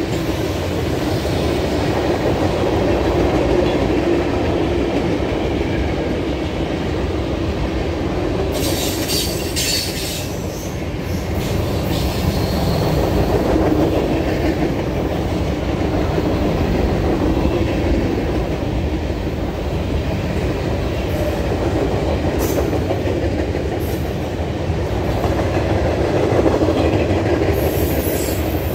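Freight cars of a Norfolk Southern train rolling past close by: a steady rumble of steel wheels on the rails, with brief high-pitched wheel noise about nine seconds in and again near the end.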